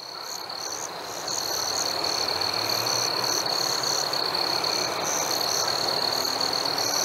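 A night chorus of many frogs calling together, over a continuous high, rapidly pulsing trill. It fades in at the start and then holds steady.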